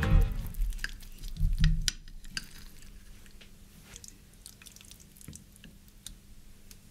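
Knife cutting through a soft baked egg-and-cheese omelette on a plate, then a metal server sliding under a slice: soft squishing and light clicks of metal on the plate. There are two dull thumps in the first two seconds.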